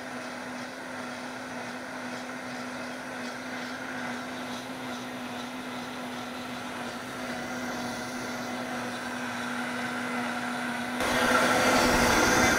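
Vitamix high-speed blender running on high, heating a celery and potato soup by blade friction: a steady motor whine that slowly grows louder, then jumps sharply louder and rougher about eleven seconds in.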